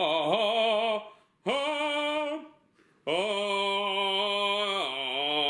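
A singing voice holding long operatic notes with vibrato, in three phrases broken by two short pauses, the last and longest note starting about three seconds in.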